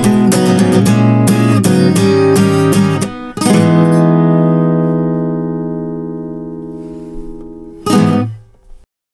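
Acoustic guitar with a capo, strummed in a steady rhythm. About three and a half seconds in, a final chord is struck and left to ring, fading slowly. Near the end a brief noisy burst comes as the hand meets the strings and cuts the chord off.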